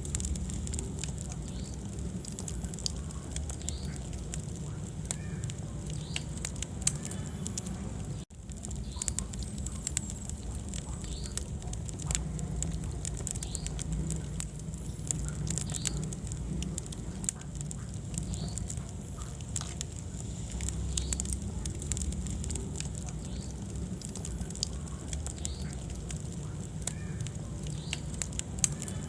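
Wood fire burning in a fireplace: many small crackles and pops over a low steady rumble of flame, with a few faint short squeaks. The sound cuts out for an instant about eight seconds in.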